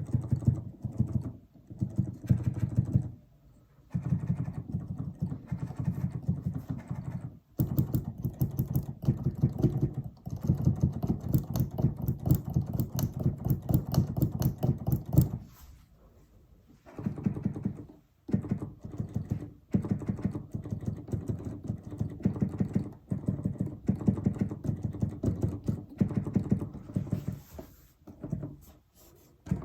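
Keys of a Native Instruments Komplete Kontrol S88 MK2 weighted keyboard being struck over and over in quick runs, the key action giving rapid mechanical clicks and knocks with a few short pauses. On this new unit the clicking is abnormal, a defect in the key mechanism that is loudest on the lowest A and also heard in the middle range.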